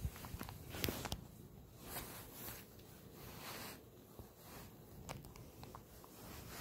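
Soft rustling and brushing of a plush Santa hat's fabric being handled close to the microphone, in several short swishes, with a few light clicks.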